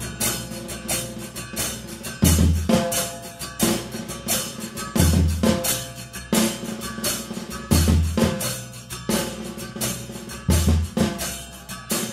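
Murga percussion: bombos con platillo, bass drums with cymbals mounted on top, playing a steady driving rhythm. Quick strikes come about three or four times a second, with a heavy low bass-drum beat roughly every three seconds.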